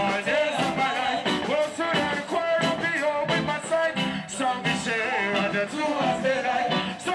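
Live reggae music: a band playing a steady beat with a singer's voice over the stage PA.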